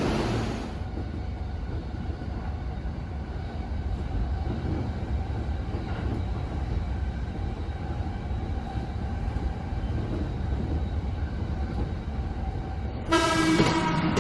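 Local passenger train running with a steady low rumble. About a second before the end a bright ringing tone sets in.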